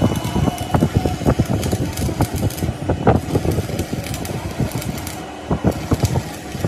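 Rapid, irregular clattering and knocking, several sharp knocks a second over a continuous rattle.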